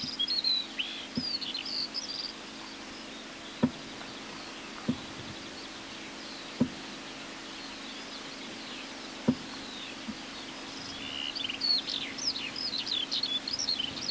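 Small birds singing in quick, high, varied chirping phrases, near the start and again more densely in the last few seconds, over a steady low hum. A handful of sharp clicks, the loudest sounds, stand out in the middle stretch.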